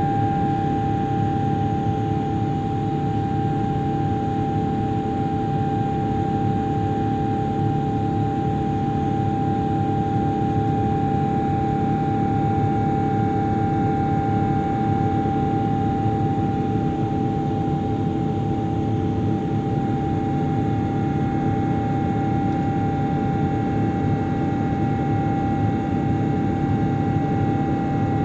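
Cabin noise of a Boeing 777-200LR in its climb after takeoff: the GE90 engines running at a steady thrust, a constant rushing drone with a steady whine on top.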